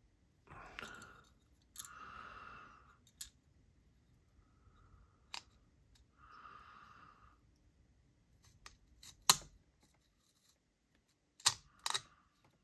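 Small metal knife parts being handled and fitted: a scatter of sharp clicks, the loudest ones near the end, with a few short soft rasps of parts sliding against each other in the first half.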